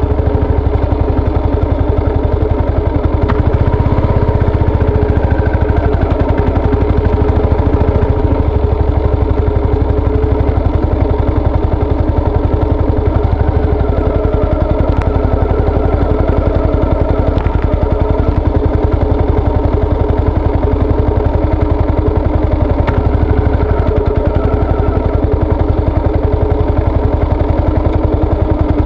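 Yamaha SR400's air-cooled single-cylinder four-stroke engine running steadily, with only slight shifts in pitch, mixed with low rumbling noise.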